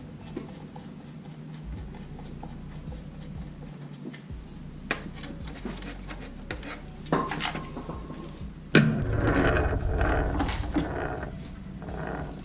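Hand work on a truck's headlight assembly: scattered clicks and knocks of plastic and metal parts being handled. A sharp knock comes about nine seconds in, followed by a few seconds of rough scraping and rattling.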